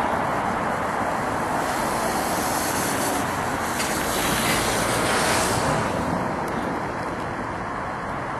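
Road traffic noise that swells to a peak about five seconds in and then fades, as a vehicle passes.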